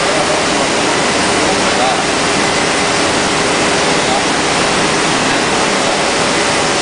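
CNC woodworking machining centre running during vertical boring: a steady, loud rush of dust extraction and drilling-head motors, with a faint steady hum underneath.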